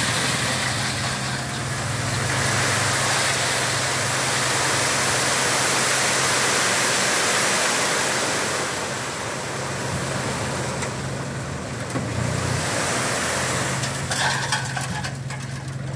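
Sand pouring and sliding out of a pickup's tipping dump bed, a loud rushing hiss that eases after about nine seconds, over a steady low hum from the truck as the hoist raises the bed. A few light clicks near the end.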